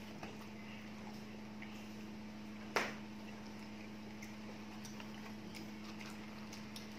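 Quiet eating sounds: plastic spoons and forks clicking and scraping in cardboard meal boxes, with small scattered ticks and one sharp click about three seconds in, over a low steady hum.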